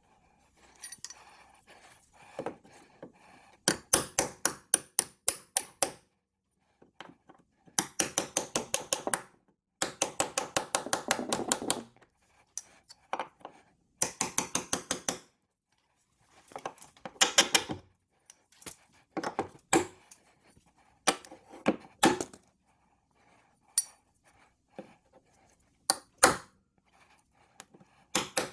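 Impact driver running in short bursts of rapid hammering clicks, each lasting a second or two, repeated about eight times with pauses between: driving fasteners into a ledger board.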